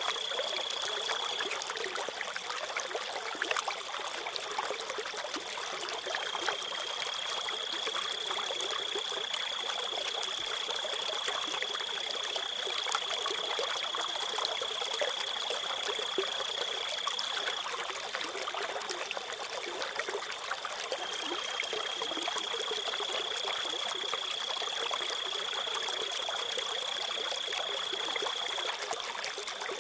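Water trickling and running steadily, with crickets trilling on one steady high pitch that fades and swells back in long stretches of several seconds.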